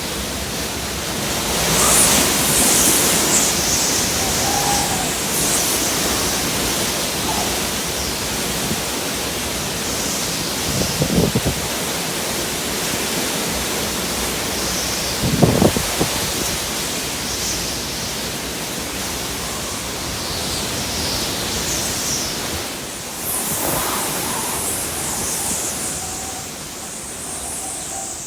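Hurricane winds rushing steadily, gusting harder about two seconds in and again near the end, with two short low knocks around the middle.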